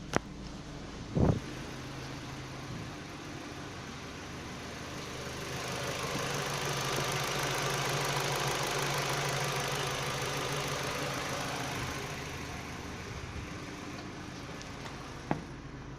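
Ford Focus II 1.6 Ti-VCT engine bay with a steady low hum, and a whirring noise that swells up for several seconds before fading away. The owner takes the whirring for a strange noise from the variable cam timing (VCT) unit after the engine is switched off. A short knock is heard about a second in, and another near the end.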